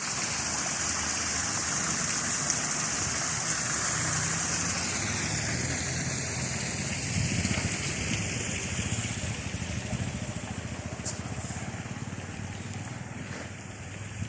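Steady background noise: a high hiss over a low, engine-like hum, easing off somewhat in the last few seconds.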